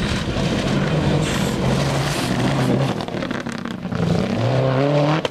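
Rally car engine at high revs on a loose gravel stage, with the crunch and spray of gravel under the tyres; near the end the engine note climbs steadily as the car accelerates.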